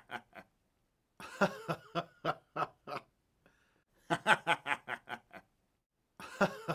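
A man laughing in rhythmic "ha-ha-ha" bursts, about five pulses a second. There are three bouts with short silent pauses between them, plus the tail of an earlier one at the very start.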